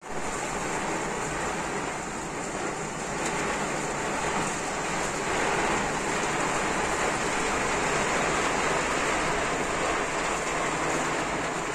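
Rain falling steadily on a car's windshield and body, heard from inside the cabin as an even hiss.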